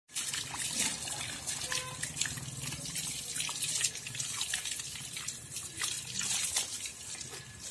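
Water from a garden hose splashing and dripping onto a calf's coat and a wet brick floor: a continuous irregular patter of many small splashes.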